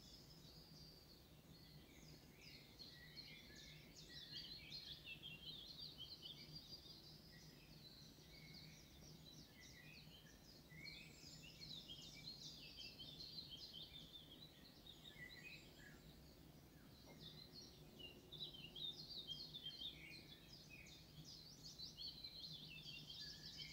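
Faint outdoor birdsong: small birds chirping and trilling in bursts that come and go, over a low steady hum.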